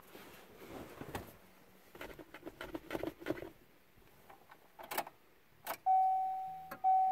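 Rustling and handling noise, then a couple of sharp clicks. After that the car's dashboard warning chime starts about six seconds in: a clear single-note ding that repeats about once a second, each one fading before the next.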